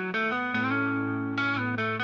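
Background music led by guitar, with notes changing about every half second.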